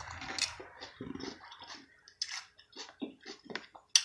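Close-up eating sounds of seafood: wet chewing and lip smacks in short, irregular bursts.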